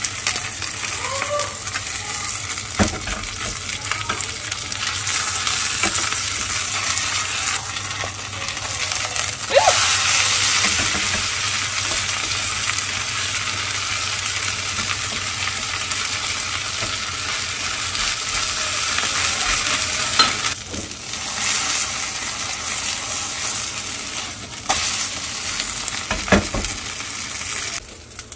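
Seafood-and-chive pancake (haemul buchujeon) frying in plenty of oil in a nonstick pan, the oil sizzling and spitting hard, with a wooden spatula knocking and scraping against the pan a few times. The sizzle gets louder about a third of the way in and drops off just before the end.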